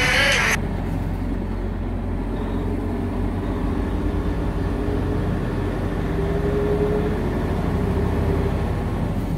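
Semi truck's engine and road noise heard inside the cab while driving at highway speed: a steady low rumble. Music cuts off about half a second in.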